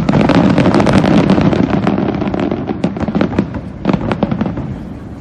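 Aerial fireworks: a sharp bang at the start followed by a dense crackle of many small pops that thins out and fades over a couple of seconds, then a second short flurry of crackles about four seconds in.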